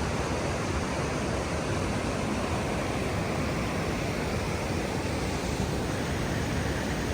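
Steady rush of the Presque Isle River's waterfalls and rapids, an even roar of falling water.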